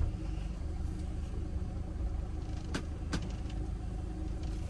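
Camper van's engine running low and steady while driving slowly, heard from inside the cab, with two light clicks near the middle.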